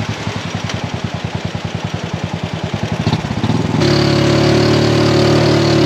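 Motorcycle engine of a passenger tricycle chugging slowly with distinct, even firing pulses, then, after an abrupt change nearly four seconds in, running louder and steadier at higher revs, straining to pull up a steep road.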